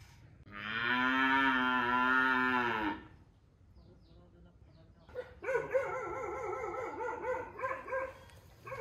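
A cow mooing: one long, level moo lasting about two and a half seconds. About five seconds in comes a second, higher animal call that wavers for about three seconds.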